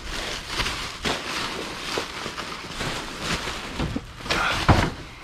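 Black plastic garbage bag crinkling and rustling as it is handled and tipped out, with a louder sharp crackle near the end.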